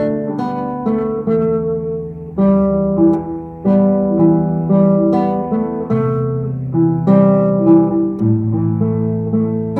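Acoustic guitar playing a melodic passage of chords and picked notes over a moving bass line.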